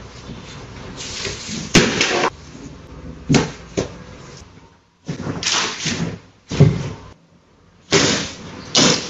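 Irregular bangs and clatters, about half a dozen sharp hits, as a dog pulls a plastic wastebasket down onto a tile floor and knocks objects about while rummaging through it.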